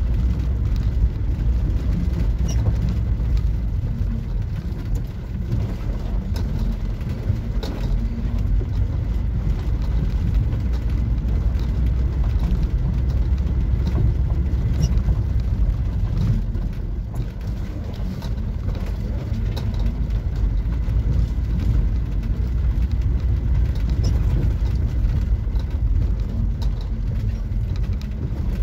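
Camper van driving slowly down a rough dirt track: a steady low rumble of engine and tyres on gravel, with scattered light clicks and rattles.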